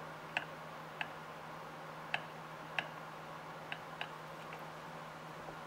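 Kitchen knife chopping boiled shrimp: about six sharp, irregularly spaced taps of the blade striking down through the shrimp, with a couple of fainter taps near the end.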